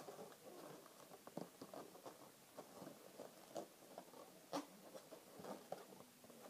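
Latex twisting balloons rubbing and squeaking as they are twisted and pressed together by hand. The short squeaks come irregularly, with one sharper squeak about four and a half seconds in.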